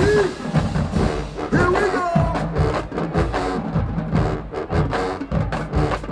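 High school marching band playing, with pitched instrument lines over constant drum hits.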